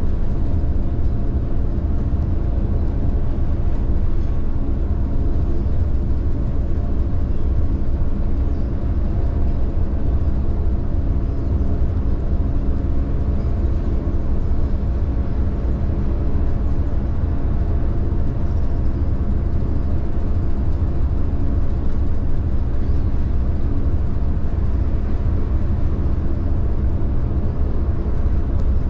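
A car ferry's engines running, heard from the open deck: a steady low drone with a hum of several steady tones that does not change, as the ship moves slowly close to the harbour.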